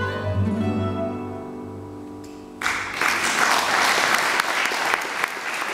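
Final chord of a fado on Portuguese guitar, acoustic guitar and double bass ringing out and fading. About two and a half seconds in, the audience suddenly bursts into applause, which is the loudest sound.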